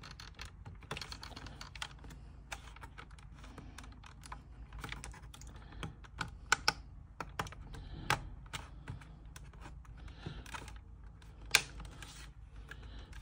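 Plastic housing of a TP-Link Archer CR700 cable modem being fitted back together by hand: a run of small irregular clicks and taps as the case and back panel are pressed and worked into place, with a few louder clicks.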